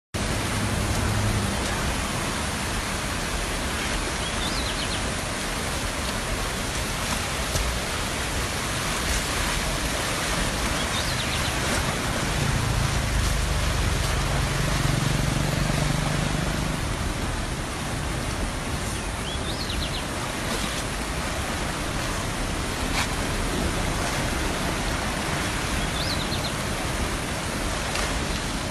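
Fast-flowing floodwater rushing past in a steady, loud, unbroken wash of noise.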